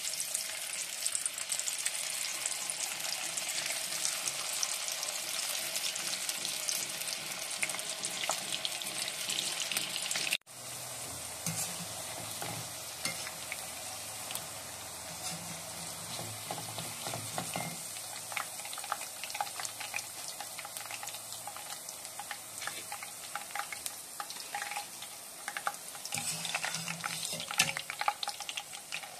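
Battered lotus stem strips deep-frying in hot mustard oil in a steel pan: a steady, dense crackling sizzle. A wire strainer stirs through the oil with small clicks and scrapes against the pan. The sound breaks off for an instant about ten seconds in, then carries on a little quieter.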